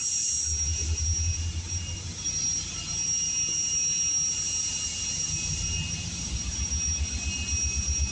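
Distant diesel freight locomotive approaching, a low rumbling engine drone that pulses and grows louder near the end.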